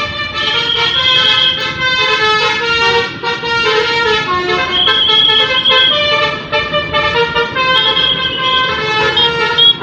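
A bus's 'telolet basuri' musical horn playing a tune: a run of held horn notes that step up and down in pitch, with short breaks between phrases.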